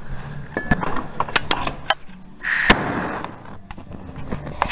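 Handling noise: scattered clicks and knocks, with a short hissing rush a little past halfway.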